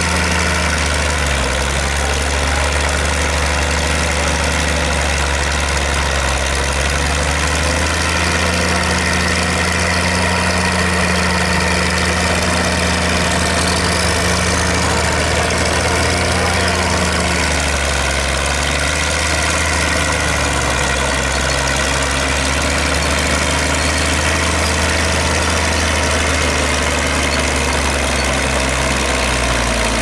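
Diesel engine of a 1955 Caterpillar No.6 Traxcavator crawler loader running steadily under load as it pushes earth with its bucket, the engine note lifting for several seconds in the middle as the load changes.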